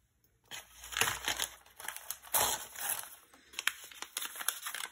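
Paper packaging rustling and crinkling in the hands as a small paper-wrapped roll of washi tape is handled and unwrapped. The rustling starts about half a second in and comes in irregular spurts with light clicks.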